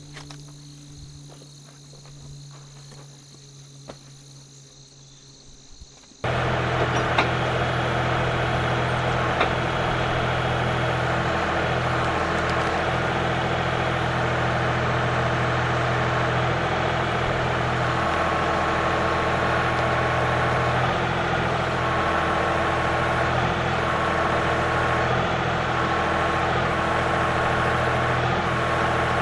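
Faint insect chirping, then a tractor's diesel engine cuts in abruptly about six seconds in and runs steadily at an even speed for the rest of the time.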